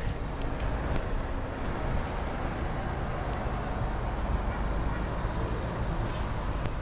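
Steady road traffic noise from a wide multi-lane city road, with cars and buses passing.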